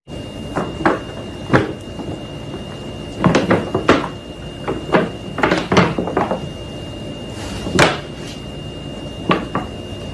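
A series of irregular light knocks and crinkles from a paper bag as cats move against it, over a faint steady high tone.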